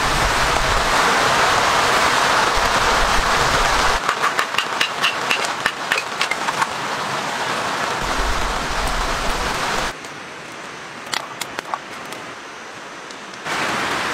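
Steady hiss of heavy rain for about the first four seconds. It gives way to a run of sharp clicks and crackles from kindling being split and a small wood fire burning, then a quieter stretch with a few fire crackles. The rain hiss returns near the end.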